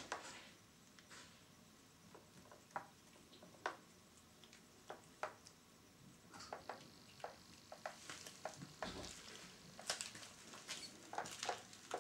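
Cats pawing at water in a metal tub: faint, irregular small splashes and light taps, coming more often in the last couple of seconds.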